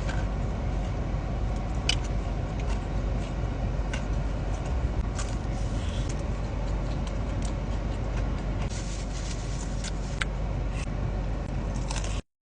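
Close-up eating sounds: scattered small clicks and crunches of chewing over a steady low rumble. The sound cuts out briefly near the end.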